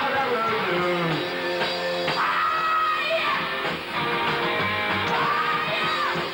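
Rock band playing live: electric guitar and drums with a singer's voice over them, steady and loud throughout.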